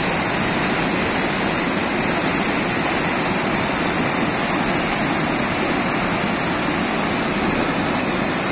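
Mountain waterfall rushing, a steady, dense roar of falling water.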